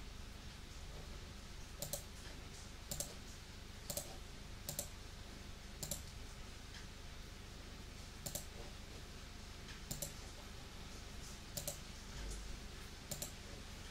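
Computer mouse clicking, single and quick double clicks about every second or so, over a faint steady hiss.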